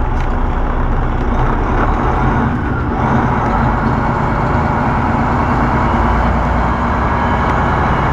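Semi truck's diesel engine running, a steady low drone with road and cab noise, filling out a little about three seconds in.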